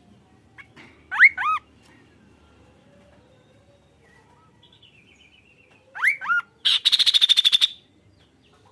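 Kaso-kaso songbird calling: two or three short curved whistled notes about a second in, then two more near six seconds followed by a fast trill of about a dozen rapid pulses lasting about a second.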